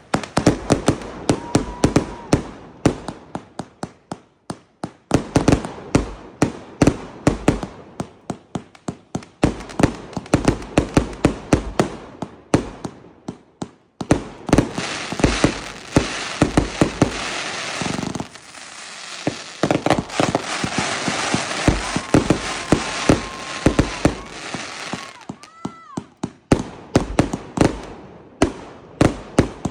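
Consumer fireworks firing from the ground in quick volleys of launch thumps and popping bursts, with short pauses between volleys. A long stretch of steady crackling hiss runs through the middle, and brief whistles sound near the start and again near the end.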